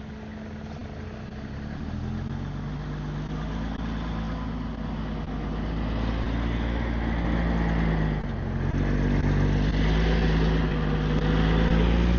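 Diesel engine of the potato-harvesting machinery running steadily. Its pitch and loudness step up about two seconds in, dip briefly near eight seconds, then build again, growing louder overall.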